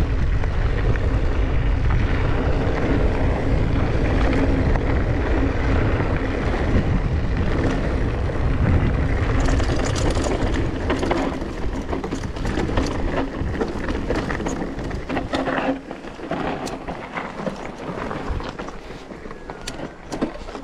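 Mountain bike riding down a dirt trail: wind rushing over the microphone with tyre noise. From about halfway on come many quick clicks and rattles of the bike over rough ground, and the rush drops off a few seconds before the end.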